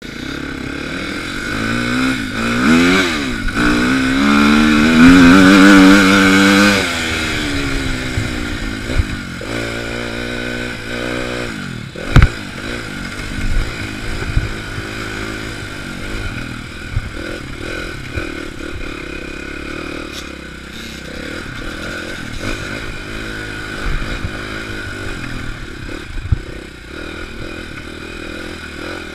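Dirt bike engine revving up and easing off, loudest about five to seven seconds in. A sharp knock comes about twelve seconds in, then the engine runs steadier at lower throttle with scattered knocks and rattles.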